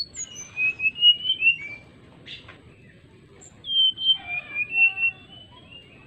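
Male brown-chested jungle flycatcher singing its fluting whistled song, the call it gives to challenge a rival: two phrases of clear, sliding whistles, each about two seconds long, with a pause between.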